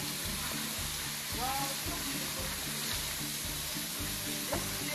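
Steady rushing hiss of a waterfall, with background music pulsing at a regular beat underneath.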